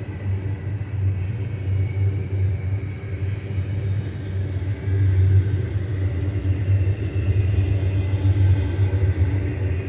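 Double-stack container well cars of a long freight train rolling past, a steady low rumble.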